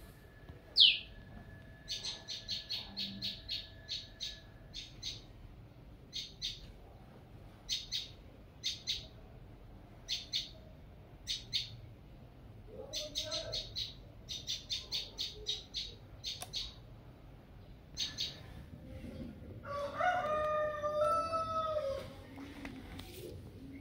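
Small birds chirping in quick runs of short high notes, with one loud falling chirp under a second in. A rooster crows about twenty seconds in.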